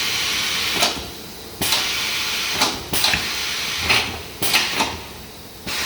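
Compressed air hissing from a tyre changer's pneumatic controls in about five short bursts, each starting or stopping with a click, as the tool head is brought down.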